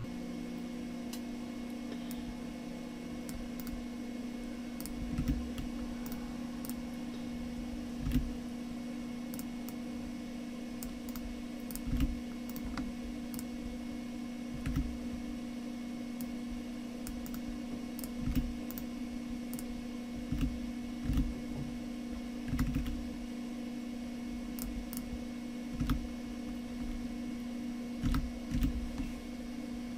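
Scattered computer keyboard and mouse clicks, a dozen or so spread irregularly, over a steady low electrical hum.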